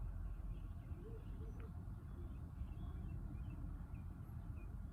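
Quiet background with a steady low hum, faint short high-pitched chirps scattered throughout and one faint click about one and a half seconds in.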